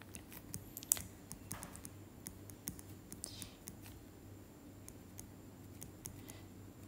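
Faint, irregular clicks and light scratching of a stylus tapping and sliding on a tablet's glass screen during handwriting.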